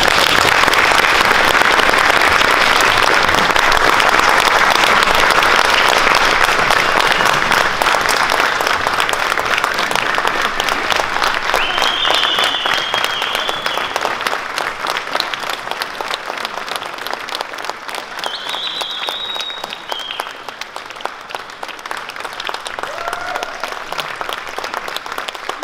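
A large audience applauding, many people clapping at once; loudest at the start, then slowly tapering off.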